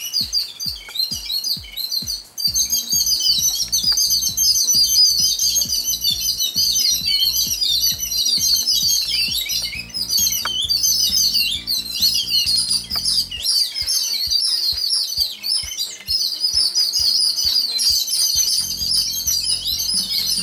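Many small birds chirping and twittering continuously in dense, overlapping calls. Under them runs background music with a steady low beat that drops out for a few seconds about two-thirds of the way in.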